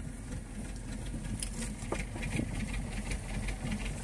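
Fishing boat's engine running steadily at low pitch, with a few faint clicks over it.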